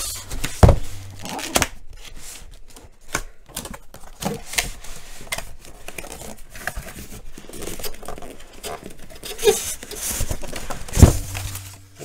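Cardboard box being handled and opened: flaps pulled open with tearing, rubbing and scraping of cardboard, and irregular knocks, the loudest about half a second in and near the end. A styrofoam insert is slid out of the box near the end.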